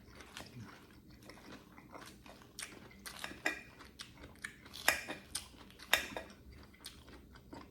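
Close-miked chewing of pizza: irregular wet mouth clicks and small crunches, with two louder clicks about two-thirds of the way through.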